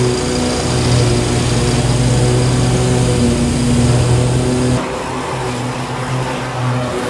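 BigDog Trooper stand-on mower's engine running steadily while mowing tall weeds. About five seconds in, the sound drops a little and the hum turns less even.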